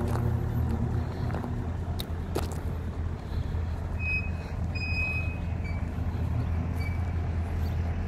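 Diesel engine of a Tata Novus 6x4 concrete mixer truck running low and steady as the truck drives slowly away. Two sharp clicks come about two seconds in, and a few short high-pitched tones follow in the second half.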